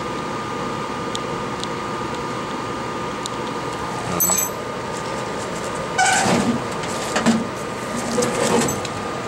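Steady hum of bench equipment with a faint constant whine. Over it come a few short clicks and clatters of small tools and phone parts being handled and set down: about four seconds in, a louder cluster around six seconds, a sharp one near seven seconds, and more near the end.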